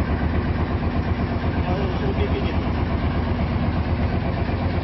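A fishing boat's engine running steadily with a constant low hum.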